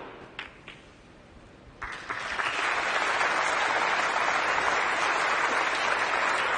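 A faint click or two of snooker balls, then audience applause that starts about two seconds in and holds steady, the crowd acknowledging a pot that takes the break from 47 to 54.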